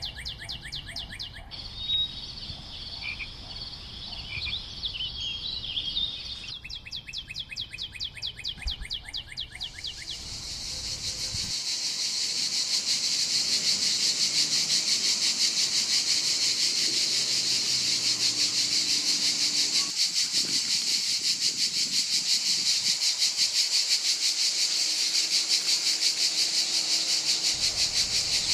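Insects calling in fast, pulsing high trills, with a few bird chirps between about 2 and 6 seconds in. From about 10 seconds in, a louder, dense and steady insect chorus takes over.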